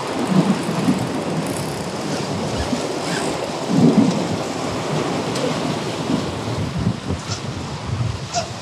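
Wind rumbling on the microphone over surf washing against jetty rocks, with a louder gust about four seconds in.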